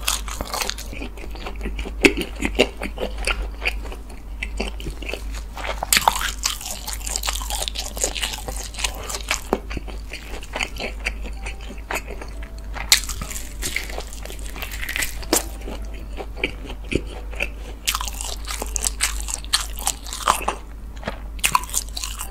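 Close-miked chewing and biting of oak-smoked pork belly, with crisp, crunchy bites scattered through a run of irregular wet mouth clicks.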